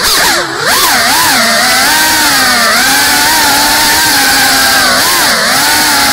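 FPV quadcopter's brushless motors whining in flight, the pitch swooping up and down with throttle changes for the first second or so, then holding a fairly steady buzz with brief dips.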